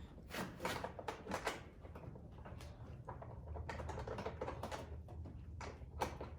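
Irregular light clicks and taps of small hardware being handled and worked into place while fitting a tow mirror to a pickup's door, with a sharper click about six seconds in.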